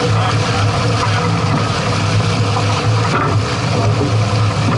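A motor running steadily, a low even hum, over a constant rushing hiss.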